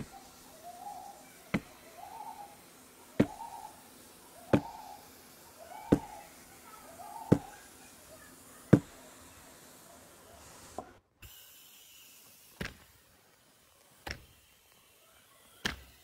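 A hot metal ball dropping through a stack of foam boards, landing with a sharp knock on each layer about every one and a half seconds, ten knocks in all. Short faint squeals come between the first several knocks.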